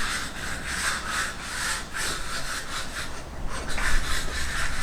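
Repeated rough scraping or rubbing strokes, about three a second.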